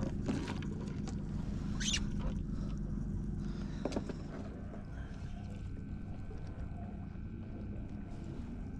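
Boat engine idling steadily, with a few knocks and a brief hiss in the first four seconds.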